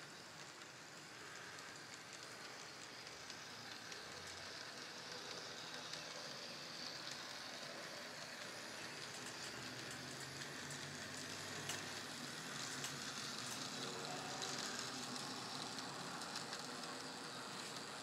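N scale model train running on the layout's track: a faint, steady whirr and rattle of the motor and wheels, with small ticks, growing slightly louder.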